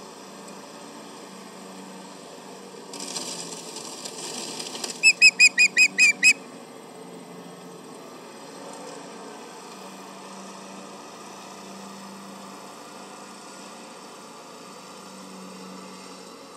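Osprey calling: a quick series of about eight short, loud, high whistled notes, each dipping slightly in pitch, over just over a second about five seconds in.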